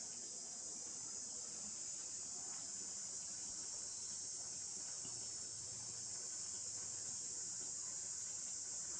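A steady, high-pitched chorus of insects, unbroken and even.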